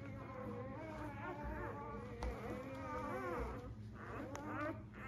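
Newborn Labrador puppies squeaking and whimpering, several at once with wavering cries overlapping, while they nurse.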